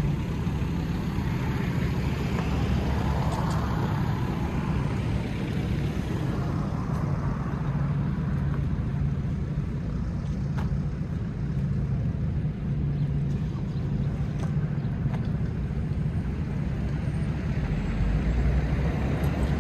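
Street traffic on a wide city road: a steady low rumble of engines and tyres, with a vehicle passing during the first few seconds.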